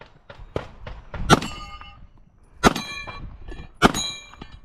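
Steel shooting plates ringing from pistol hits: three sharp impacts a little over a second apart, each followed by a metallic ring, with a fainter strike before them.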